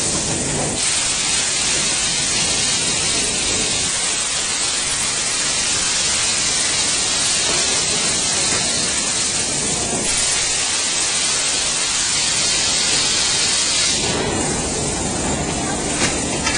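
A steady, even hiss with no pitch or rhythm in it. About fourteen seconds in it takes on more lower-pitched rushing.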